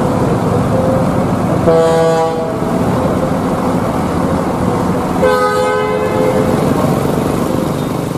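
Bus horn sounding twice, a short blast about two seconds in and a longer one a little after five seconds, over the steady running of bus engines and terminal traffic.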